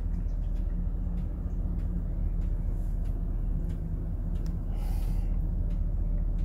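GMC Savana cargo van idling, a steady low hum heard from inside the cabin, with a few faint ticks and a short hiss about five seconds in.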